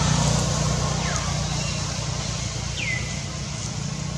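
Steady low motor rumble, like a vehicle running, under a general outdoor hiss, with a couple of short high chirps that fall in pitch, one near the end.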